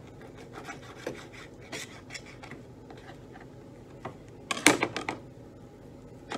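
A knife scraping and cutting against a cutting board as raw chicken is trimmed, with a quick run of sharp knocks about halfway through.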